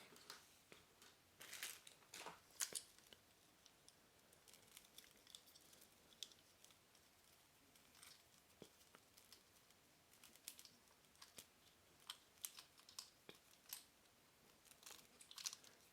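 Faint, scattered clicks and rustles of hands working a cable tie loose from a power adapter's coiled cable.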